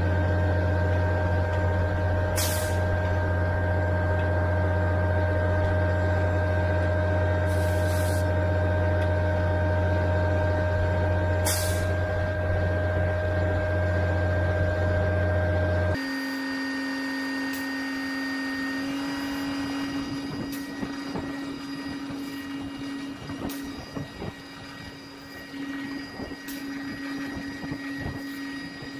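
Concrete boom pump truck running as its hydraulics fold the 38-metre boom down: a steady, deep machine hum with three short hisses in the first half. About halfway through the sound changes abruptly to a quieter, higher-pitched steady hum with light ticking.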